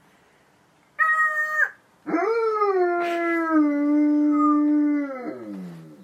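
A parrot gives a short, flat, pitched call about a second in. A dog then answers with one long howl that rises, holds steady for about three seconds and falls away at the end.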